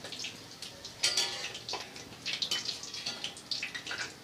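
A puri of maida dough deep-frying in hot oil in a metal kadhai: the oil sizzling and crackling with many small irregular spits, livelier from about a second in.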